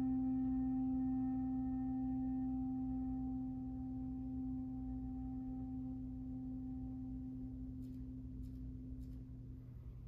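Concert flute holding one long low note, near the bottom of its range, that slowly fades away and stops shortly before the end.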